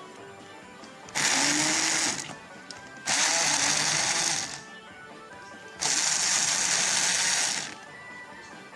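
Hand-held stick blender running in three bursts of one to two seconds each, puréeing a chunky pepper mash in a saucepan, with quieter pauses between the bursts.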